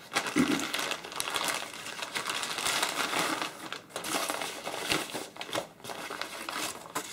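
A plastic bag and wrapping crinkle and rustle as they are pulled off and unfolded by hand. The rustling runs steadily, with two short pauses near the end.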